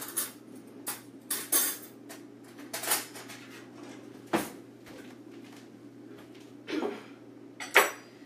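Cutlery and dishes clinking and clattering as a fork is fetched: a string of separate sharp knocks about a second apart, the sharpest one near the end.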